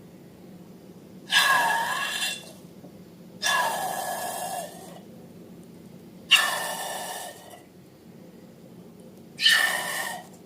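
Air hissing out of a balloon's neck in four short bursts, each with a squeaky tone and a sudden start that fades over about a second.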